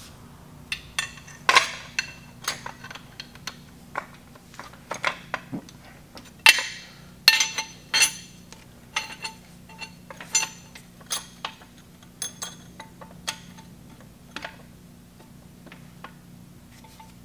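Irregular sharp metal-on-metal clinks and clicks, some ringing briefly, from a wrench working the cam bearing installation tool in an engine block's cam bore while its expander is snugged down to lock the cam bearing onto the tool.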